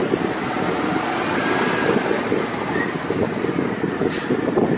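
2007 Ford F-750 water truck's Cummins 5.9L diesel engine running as the truck drives up, with wind on the microphone. A brief high hiss about four seconds in.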